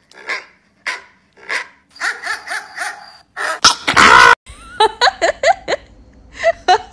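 Dog barking in short, quick barks for about three seconds, then a sudden loud burst of noise and a woman laughing hard.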